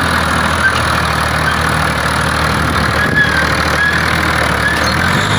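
Fiat 480 tractor's three-cylinder diesel engine running steadily under load as it pulls a tine cultivator through the soil.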